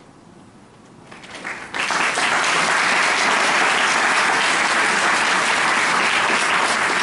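Audience applauding: a few scattered claps, then full applause breaks out about two seconds in and keeps going steadily.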